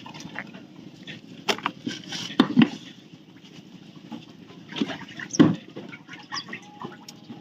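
Water splashing with irregular knocks and clatter as a fishing net is hauled aboard a boat by hand, with two louder thumps, one about a third of the way in and one past the middle.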